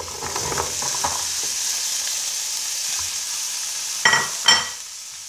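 Chopped mixed vegetables and garlic sizzling in hot cooking oil in a pan. About four seconds in come two sharp ringing metal clinks on the pan, and the sizzle then dies down.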